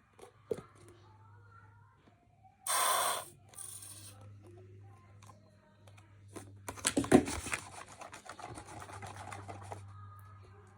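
A short hiss of air squeezed from a near-empty glue bottle about three seconds in, then a few seconds of sticky crackling and squelching as the glue and laundry-detergent slime is stirred in a bowl with a pencil. A steady low hum runs underneath.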